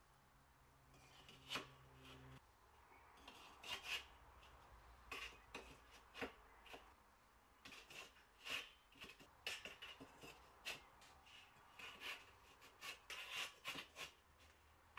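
Faint, scattered clicks, light knocks and scrapes of fire bricks being set down on wet cement and pushed into place against each other inside a steel drum.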